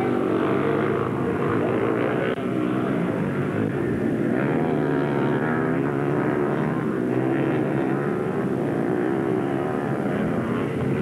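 Engines of several three-wheeled ATVs racing on a dirt track: a continuous engine drone with overlapping pitches that rise and fall as the riders throttle on and off.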